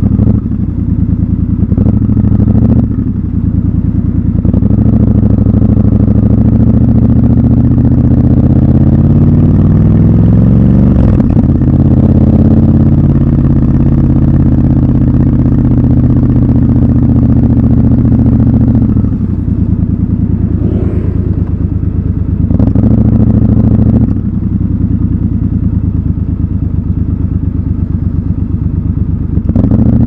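Triumph Scrambler 1200 XC's parallel-twin engine heard from the rider's seat: its pitch rises as the bike accelerates about ten seconds in, holds steady for several seconds, then falls away a little past halfway. A few short knocks sound along the way.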